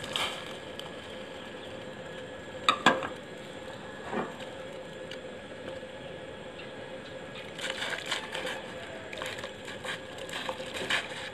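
Kitchen handling sounds of a bowl and a steel cooking pot: a few sharp knocks and clinks, the loudest about three seconds in, then a run of clattering and clinks near the end as sliced kamias are tipped from the bowl into the pot of water. A faint steady hum runs underneath.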